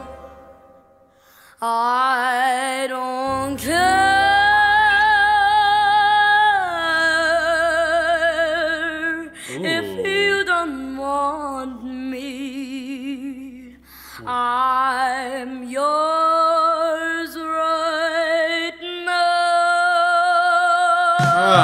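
A young girl's voice singing a slow jazz ballad, coming in about a second and a half in, with long held notes and wide vibrato over faint, low accompaniment.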